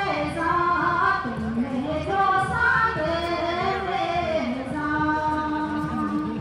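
A group of women singing a traditional song together in a melodic chant, ending on one long held note.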